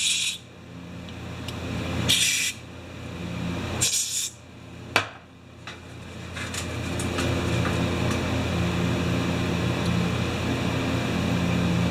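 Three short hissing squirts of spray into the ice auger's carburetor passages, about two seconds apart, with a click after the last. Then a low steady hum builds up and holds.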